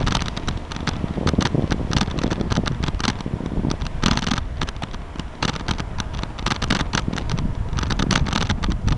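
A bicycle rolling along a paved path, with a dense, irregular crackle and rattle from the moving bike and camera and a low wind rumble on the microphone.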